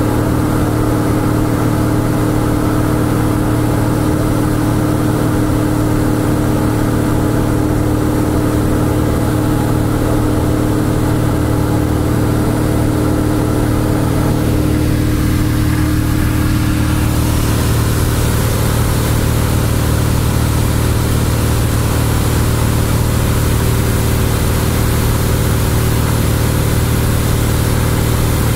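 Cessna 172's piston engine and propeller running at a steady cruise drone, heard inside the cabin. About two-thirds of the way through, the rushing airflow hiss gets brighter.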